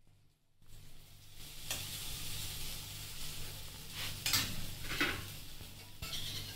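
Savoury chilra (gram-flour pancake) frying in oil on a hot pan: a steady sizzle that starts about half a second in, with a spatula scraping the pan a few times.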